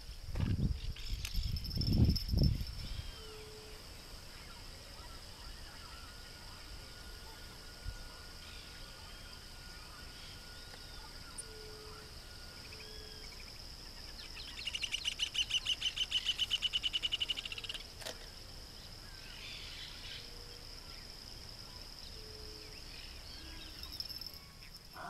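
Insects trilling steadily on one high note, with scattered faint bird chirps. About halfway through, a louder rapidly pulsing buzzing call runs for about three seconds. A few low thumps in the first couple of seconds.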